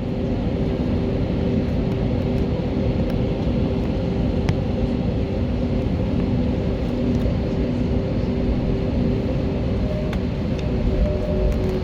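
Airbus A320neo jet engines running with a steady rumble and an even hum, not yet rising as they would for the takeoff run.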